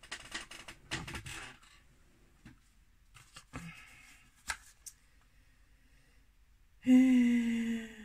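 Rummaging through makeup items: rustling and clattering for about the first second and a half, then a few separate light clicks and taps. Near the end comes a woman's steady closed-mouth hum, 'mmm', about a second long and the loudest sound.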